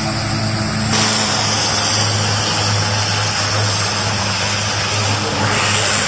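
Single turboprop engine and propeller of a Cessna 208B Caravan running at high power on its takeoff roll. It is a steady loud hum with a hissing whine that grows brighter about a second in and again near the end.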